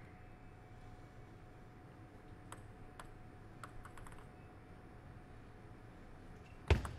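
A few light clicks of a table tennis ball being bounced and handled as the server gets ready, then a louder sharp knock near the end as the serve is played.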